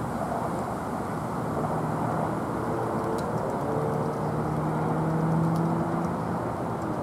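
Airbus A380's four Rolls-Royce Trent 900 turbofans on landing approach: a steady low jet rumble with a few held humming tones, swelling slightly about five seconds in.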